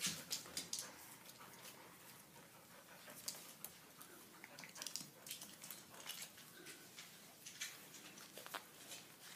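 Puppies play-wrestling on a wooden parquet floor: faint scuffling with irregular sharp clicks of claws and paws on the wood, most frequent in the first second.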